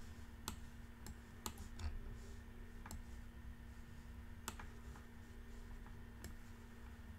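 Faint, irregular clicks of a computer mouse, about one a second, as a chart on screen is zoomed and moved, over a low steady hum.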